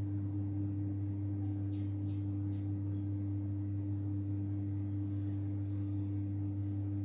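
Steady low electrical hum at a constant pitch, with a few faint crinkles of aluminium foil being rolled by hand about two seconds in.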